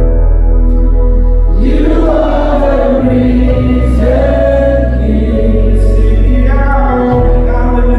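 Church worship music: a choir singing a slow gospel worship song over sustained instrumental backing with a deep, steady bass.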